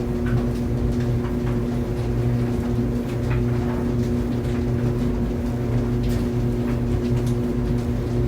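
Laundry dryer running: a steady low rumble with a constant hum, and light irregular ticks scattered through it.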